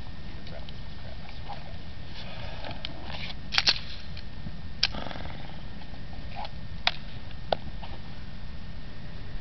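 Steady wind rumble with a few sharp metallic clicks of a pistol being loaded and made ready. A quick double click about three and a half seconds in, like a slide being racked, is followed by single clicks further on.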